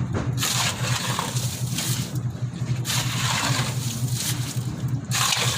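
An engine running steadily with a low pulsing hum, overlaid by repeated bursts of gritty scraping or sloshing noise, each about a second long.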